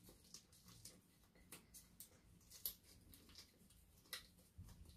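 Near silence with faint scattered clicks and taps from a spoon and glass bowls as cornstarch is tipped into a glass mixing bowl; the clearest tap comes near the middle.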